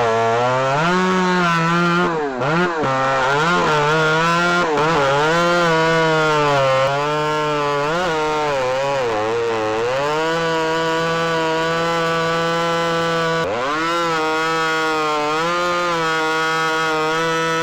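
Ported and piped Stihl MS310 two-stroke chainsaw with a 28-inch bar cutting cherry slabwood. The engine runs hard, its pitch dipping as it bogs under load in the cut and climbing back again and again, with one sharp drop and recovery near the end.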